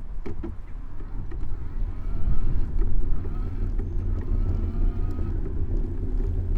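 City traffic heard from a moving bicycle: a steady low rumble of road and wind noise on the microphone, with a faint rising whine through the middle and a few light clicks at the start.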